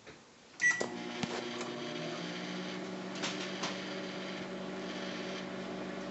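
Microwave oven being started: a short beep with a click about half a second in, then the oven running with a steady hum and a few faint clicks.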